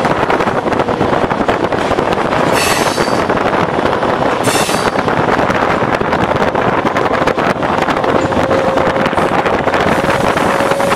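Class S11 diesel multiple unit running along the track, with steady rail and running noise. Two brief high-pitched wheel squeals come about two and a half and four and a half seconds in, and a faint hum edges up in pitch near the end.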